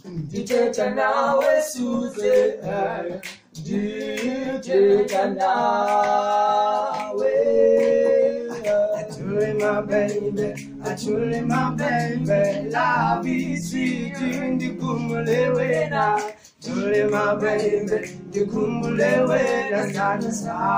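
A small group of male voices singing a cappella in close harmony, with sustained chords and sharp clicks through it. The singing breaks off briefly about three-quarters of the way through, then resumes.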